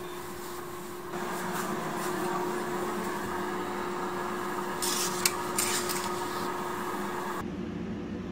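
Steady room hum with one low constant tone. About five seconds in come a few short clicks and rubbing sounds, the handling of a kitchen cabinet door being opened.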